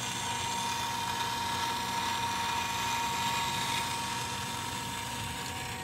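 IC school bus stop-arm motor running with a steady high whine inside its gearbox while the arm doesn't move. The motor turns, and the mechanic believes the little bevel gears in the gearbox are shattered or their teeth broken.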